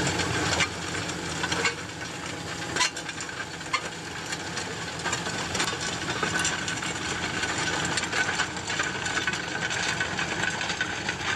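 Tractor pulling a heavy offset disc harrow through hard, stony ground: a steady engine and soil-working noise with the discs scraping. Sharp knocks come every second or so in the first few seconds, as the discs strike stones.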